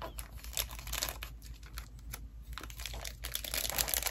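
Paper wrapping crinkling and rustling in irregular bursts with small clicks as a taped paper package is unwrapped by hand.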